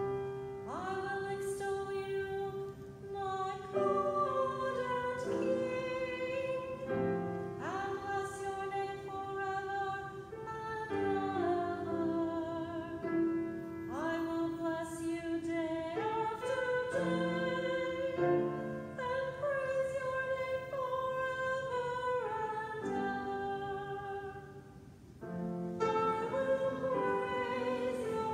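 A solo singer sings slow, sustained phrases with vibrato over instrumental accompaniment: the responsorial psalm that follows the first reading at Mass.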